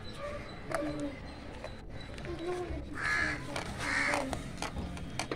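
A crow cawing twice, about a second apart, two hoarse calls near the middle of the stretch.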